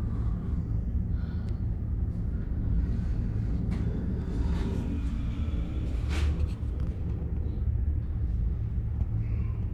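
Steady low rumble of ride noise inside a moving tricable gondola cabin, with a couple of faint brief clicks about four and six seconds in.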